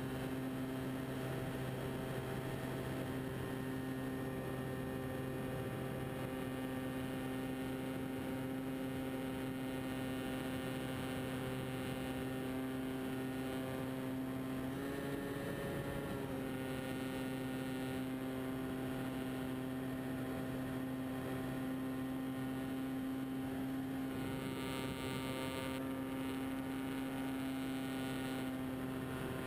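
Radio-controlled scale Tiger Moth model biplane's motor and propeller droning steadily in flight, heard from the onboard camera. The pitch wavers briefly about halfway through, then settles back.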